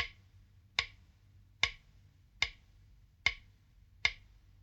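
Sharp, evenly spaced mechanical clicks, six of them, about one every 0.8 seconds, like a slow clock tick.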